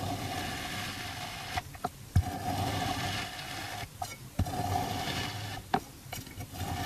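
A long thin metal blade cutting down through kinetic sand: a grainy, crunching scrape with a steady note from the blade, in about four strokes broken by short sharp taps.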